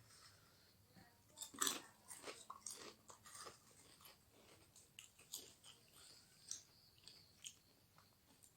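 A person chewing and biting food close to the microphone, with irregular soft crunches and mouth clicks.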